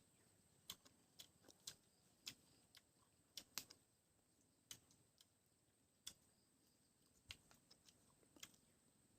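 Faint, irregular wet clicks and smacks of a mouth chewing and sucking lemon, about a dozen scattered over the stretch.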